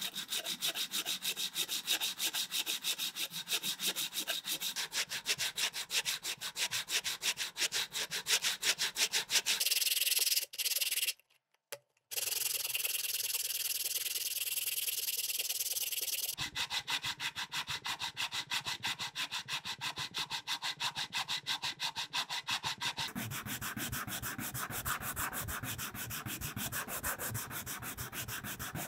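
A block of dried skipjack tuna (katsuobushi) sanded by hand on sandpaper: fast, rhythmic rasping, stroke after stroke, with a short break about ten seconds in.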